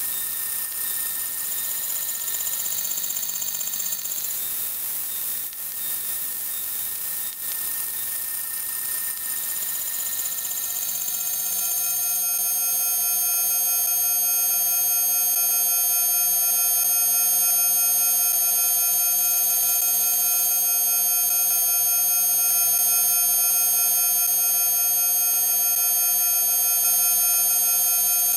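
Electronic soundtrack: a hissing noise bed with a few faint steady tones, then, about eleven seconds in, a dense cluster of many steady high electronic tones swells in and holds, like a sustained alarm-like drone.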